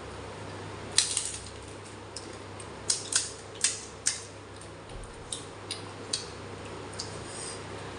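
Crisp fuchka (pani puri) shells cracking and crunching: a string of short, sharp crunches, the first and loudest about a second in, then a quick cluster around three to four seconds and a few lighter ones after.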